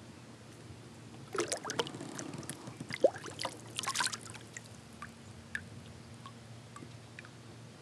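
Water splashing as a released northern pike kicks away beside the kayak: a cluster of splashes starting about a second and a half in and lasting a few seconds, then a few scattered drips.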